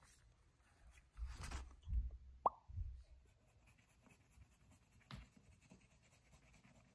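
A few soft thumps, then one short plop with a falling pitch about two and a half seconds in, and a small click later on.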